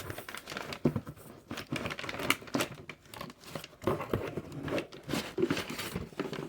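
A cardboard shipping box being opened and its packing handled by hand: irregular crinkling, rustling and tearing with scattered sharp clicks.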